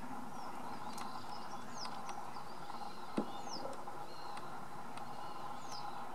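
Small birds calling: short high notes that slide downward, repeated every couple of seconds, with thinner steady notes between them, over a constant outdoor background hiss. A single soft knock about three seconds in.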